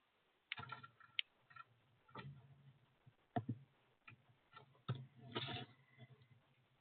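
Faint, irregular sharp taps and knocks, about half a dozen, from birds pecking and moving about at a feeder.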